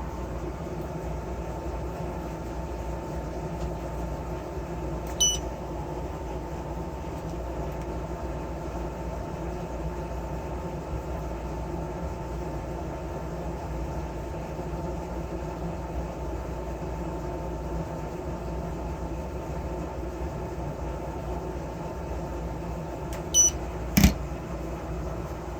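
Steady low background hum with a faint constant tone. Short electronic beeps sound about five seconds in and twice near the end, followed by a sharp click.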